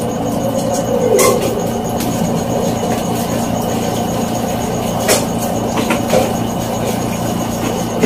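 Sharp twin-tub washing machine's spin-dryer motor running with a steady hum after its timer has been replaced. A few light knocks sound over it.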